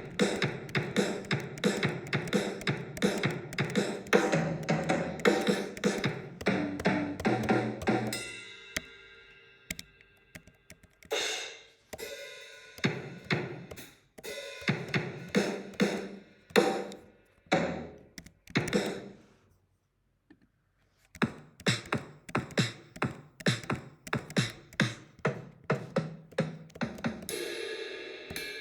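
GarageBand sampled acoustic drum kits playing short grooves and fills in several separate passages: kick, snare, toms, hi-hat and cymbals, with ringing cymbal tails, a brief pause about two-thirds of the way in, and a cymbal crash near the end.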